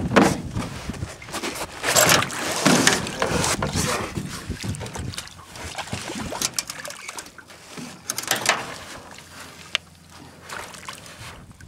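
Water splashing in irregular bursts as a hooked snook thrashes at the surface beside the boat while being landed, the splashing dying down toward the end.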